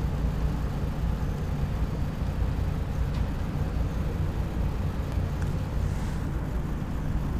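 Steady low engine rumble and drone of the passing ship Birch Glen, even throughout.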